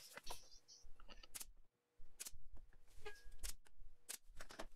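Scattered light clicks and knocks of plywood parts and tools being handled and set in place on a workbench.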